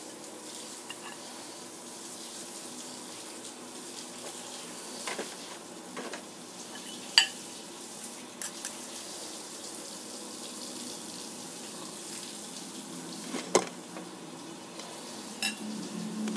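Metal spoon and fork scraping and clinking on a plate of fried rice, with about six sharp clinks, the loudest about seven seconds in, over a steady background hiss.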